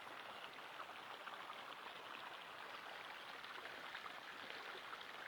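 Mountain river flowing: a steady rush of water flecked with many small splashes.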